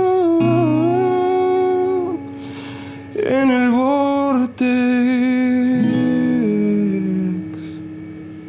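A man's voice holding long wordless notes over a strummed acoustic guitar, then a last strum about four and a half seconds in, its notes ringing and fading away as the song ends.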